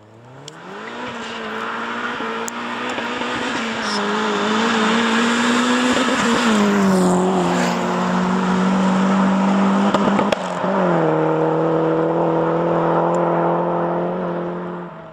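Opel Corsa A GSi engine revving up fast and then held at high revs, its pitch stepping down twice, about six and ten seconds in.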